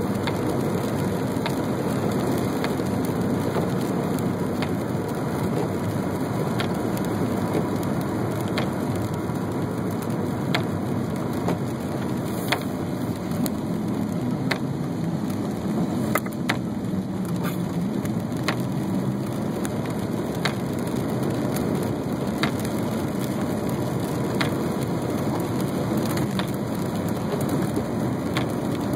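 Inside a moving car on a rain-wet road: a steady rush of tyre and rain noise, with a light sharp tick about every two seconds.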